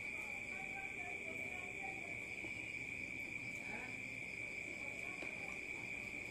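Steady, high-pitched insect chirring that does not let up, like a cricket chorus.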